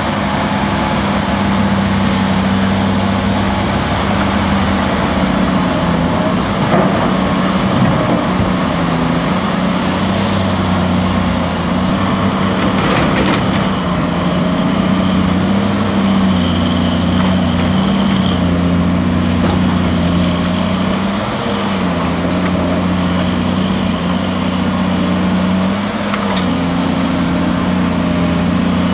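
Heavy diesel earthmoving machinery running without a break: a loaded Bell B25D articulated dump truck driving, then a Cat 330C L excavator working, its engine note stepping up and down as the hydraulics take load while it swings and loads a tipper truck. A short hiss comes a little past halfway.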